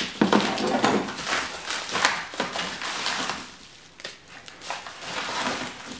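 Scissors cutting open a padded paper envelope, with the paper rustling and crinkling as it is handled. The rustling eases off briefly past the middle, then picks up again.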